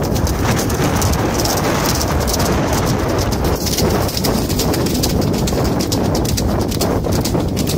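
Horses galloping over a wet shingle beach: a steady run of close, rapid hoofbeats on pebbles mixed with splashing through shallow water.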